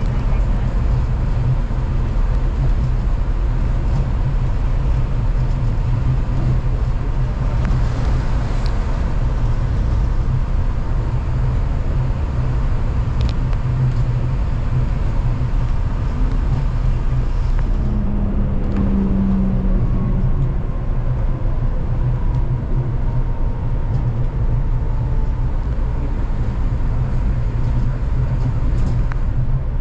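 Rubber-tyred Kanazawa Seaside Line automated guideway train running along its concrete guideway, heard inside the car: a steady low rumble from the tyres and running gear. A faint whine slowly falls in pitch about two-thirds of the way through.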